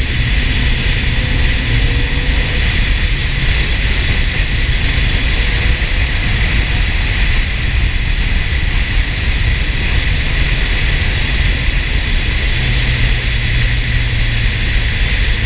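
Porsche 968 driving: a steady rush of wind and road noise over a low engine drone. The drone grows stronger near the end.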